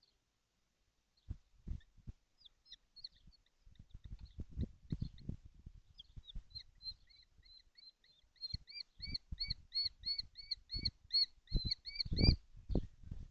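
Young kestrels calling: scattered chirps, then a run of short arched call notes at about three a second that grows louder, over knocking and scuffling in the nest.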